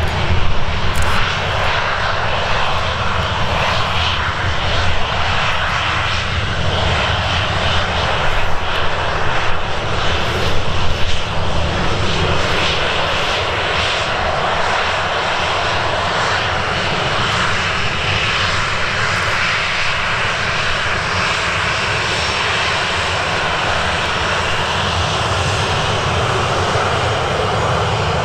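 Boeing 737-800's CFM56-7B turbofan engines running steadily at taxi power as the airliner rolls slowly along the taxiway: a continuous jet roar and whine.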